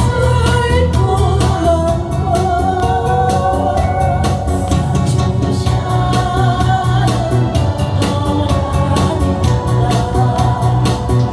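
A woman singing a Korean popular song over a backing track with a steady drum beat and bass.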